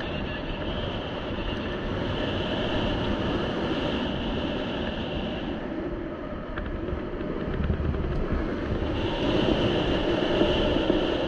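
Wind rushing over the camera's microphone during paraglider flight: a steady, rumbling buffet with a higher hiss that fades out about halfway through and comes back near the end.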